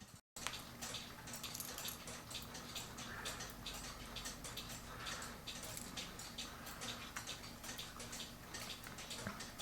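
Quiet, irregular small metal clicks and ticks from a cuckoo clock movement as a part is fitted onto it behind a lever, over a faint low hum.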